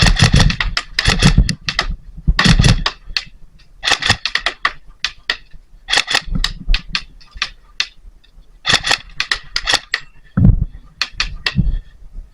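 Airsoft guns firing in short rapid bursts of sharp clacks, one burst every second or so, with brief pauses between, the longest about two-thirds of the way through.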